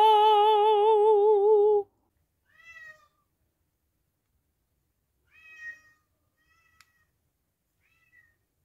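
A long held note with a wavering pitch that stops about two seconds in, then a few short cat meows: one about two and a half seconds in, one about five and a half seconds in, and a faint one near the end, with a light click between the last two.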